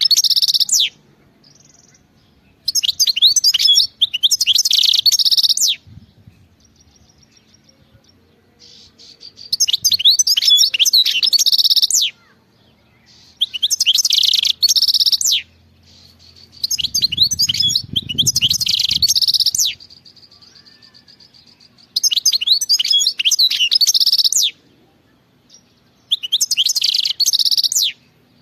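A wild-caught European goldfinch singing: loud, fast, twittering song phrases of two to three seconds each, repeated about every four seconds with short pauses between them.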